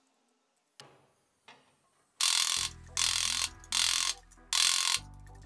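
Metal working against a handsaw blade clamped in a vise: four harsh rasping strokes, each about half a second long and a little under a second apart, starting about two seconds in.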